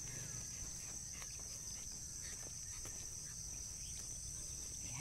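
Steady high-pitched chorus of field insects shrilling on one unbroken tone, over a low rumble.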